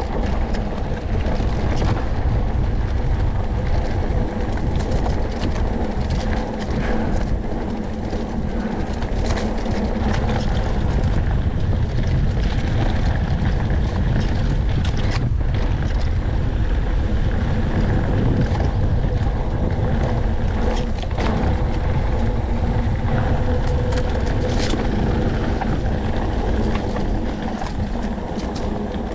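Mountain bike rolling fast down loose, rocky dirt singletrack: a steady rumble of wind on the microphone and tyre noise, with frequent clicks and rattles from stones and the bike.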